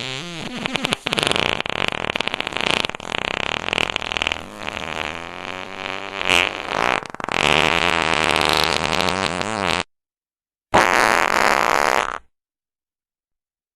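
Fart sound effects played back to back: sputtering, rasping and wobbling-pitch farts run one into the next for about ten seconds. After a short pause comes one more fart of about a second and a half.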